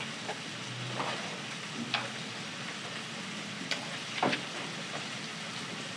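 A kitchen knife cutting on a plastic cutting board: a few sharp knocks, loudest about two seconds in and again after four seconds, over a steady hiss.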